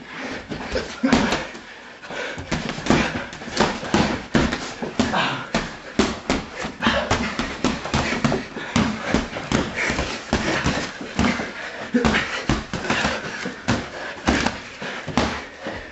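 Boxing gloves landing in a rapid, irregular flurry of thuds and slaps, with voices shouting throughout.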